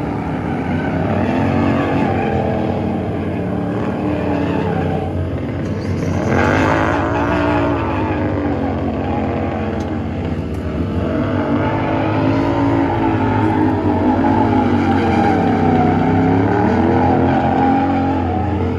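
Motorcycle engine held at high revs for a burnout, the revs rising and falling over and over while the spinning rear tire hisses and squeals on the asphalt. The tire noise swells to its loudest about six seconds in.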